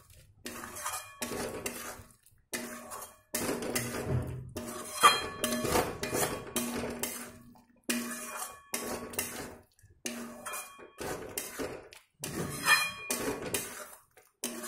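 Spatula scraping and knocking against a metal kadai as thick masala gravy is stirred and fried, in bursts with short breaks between them.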